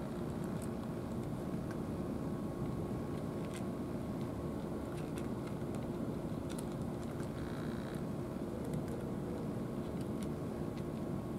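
A steady low mechanical hum with faint steady tones in it, and scattered faint clicks of a cat lapping from a plastic bowl.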